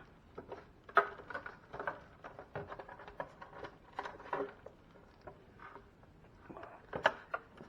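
Small clicks, taps and rustles of an ice maker unit being handled and fitted into a refrigerator, with a sharper click about a second in and a couple more near the end.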